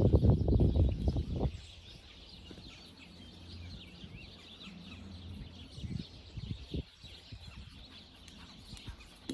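Small birds chirping in the background, many short high calls overlapping. A loud low rumble covers the first second and a half, and a few soft low thumps come later.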